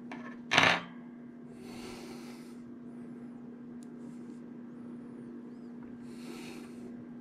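Small handling noises as an earbud is worked on by hand: one short, loud noise about half a second in, then two soft rubbing sounds, over a steady low electrical hum.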